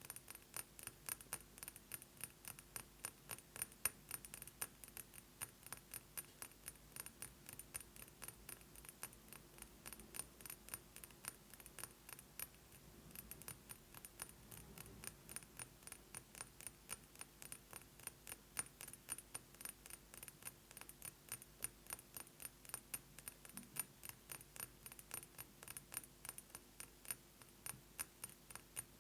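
Fast fingernail tapping on a perfume bottle: quick, light clicking taps, several a second, kept up without pause.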